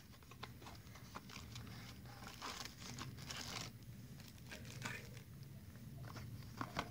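Faint rustling and small clicks of packaging being handled: a clear plastic bag of spare parts crinkling and a small cardboard box being opened, on and off, busiest in the middle.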